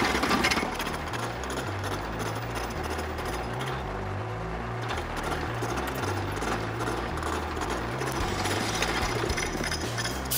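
A 160 mm face mill on a 1947 Kearney & Trecker 2HL milling machine's vertical head cutting across a metal plate, giving a steady, rhythmic chattering noise. The cutter is at the upper limit of what this vertical head can handle.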